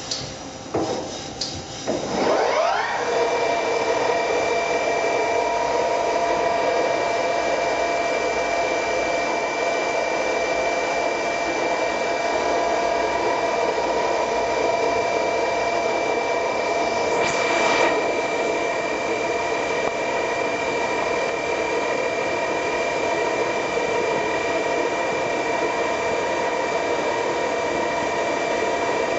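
Spindle of a Mori Seiki MV-1003B vertical machining center running. Near the start its whine falls away, then about two seconds in it rises and settles into a steady high whine, with a short hiss about seventeen seconds in.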